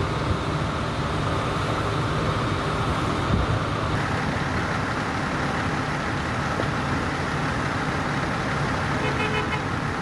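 Idling vehicle engines, a steady low hum, with a short run of faint high beeps near the end.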